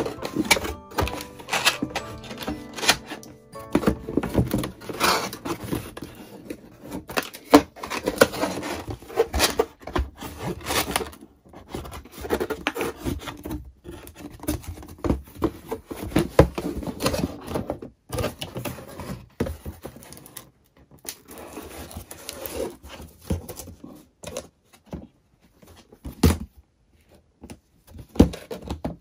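Background music with irregular clicks and knocks of items being handled. Near the end the sound thins out to a few isolated sharp knocks.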